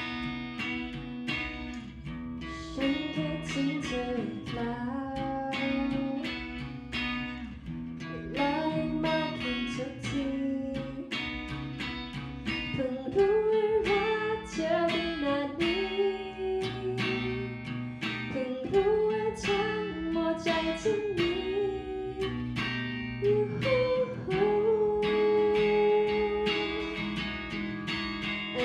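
Live band music: guitars strumming and picking over sustained bass notes, with a gliding melody line on top, as an instrumental passage with no lyrics sung.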